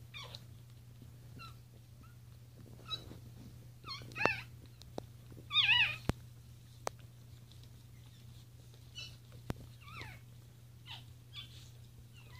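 Newborn puppies squeaking and whimpering in short, high, wavering cries, the loudest two about four and six seconds in, with fainter squeaks scattered through. A steady low hum runs beneath, with a few sharp clicks.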